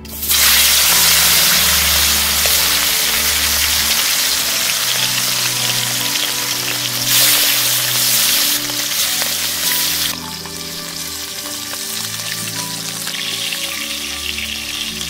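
Fish pieces going into hot mustard oil in a metal wok and sizzling loudly as they fry; the sizzle starts suddenly as the fish goes in and settles to a lower level about ten seconds in.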